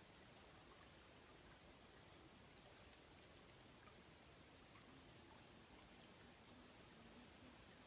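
Faint insect chorus: a steady, high-pitched trilling that does not change, with a brief faint click about three seconds in.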